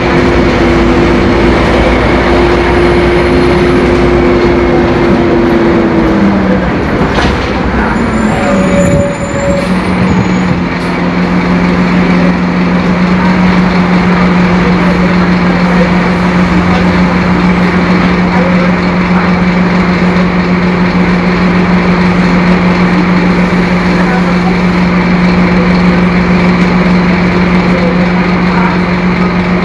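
Scania K-270 five-cylinder turbodiesel bus engine running loudly. Its steady pitch falls away between about six and nine seconds in as the revs drop, then it settles into a steady, lower drone.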